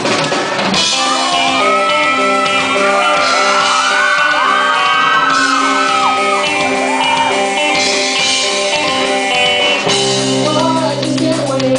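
A live band playing loud music in a large hall, with held chords and repeated cymbal crashes. Several voices shout and whoop over it, most around the middle and near the end.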